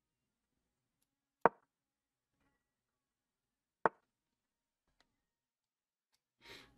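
Two sharp wooden clicks of the chess.com piece-move sound effect, about two and a half seconds apart, then a soft, short noise near the end.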